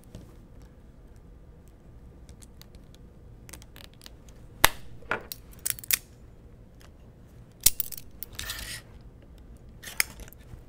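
Small nylon zip ties being pulled tight with pliers around linear bearings: a few sharp clicks and, late on, a short rasp of a tie drawn through its head.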